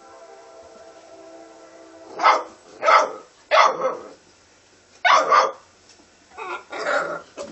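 American red-nose pit bull puppies barking, about six short yapping barks a little over two seconds in, after a faint steady whine at the start.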